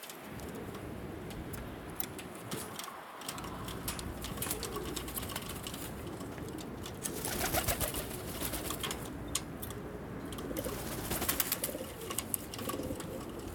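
A loft of Altambaş dönek pigeons cooing continuously, several birds overlapping. Scattered sharp clicks run through it, with louder rustling bursts about halfway through and near the end.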